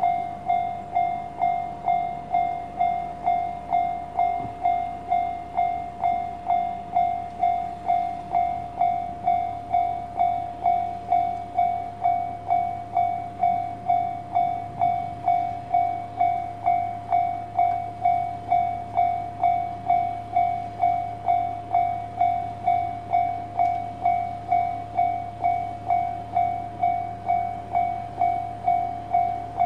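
A bell-like tone struck about twice a second in an even, unbroken rhythm, each strike dying away quickly.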